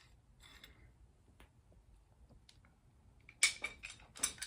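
Light clicks and clatter of small metal hardware being handled, sparse at first, then a louder cluster of sharp clicks near the end.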